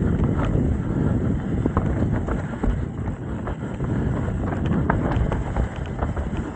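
Trek Top Fuel 8 mountain bike descending a dirt trail at speed: wind buffeting the microphone over the rumble of tyres on the ground, with many short clicks and rattles from the bike and loose debris.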